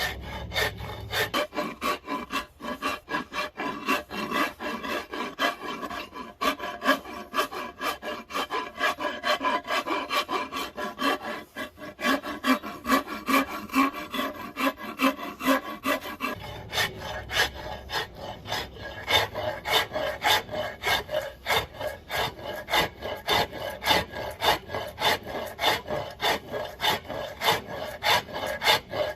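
Hand tool scraping and cutting along a hickory axe handle in quick, rhythmic back-and-forth strokes, a few a second, with the stroke sound changing in tone about halfway through.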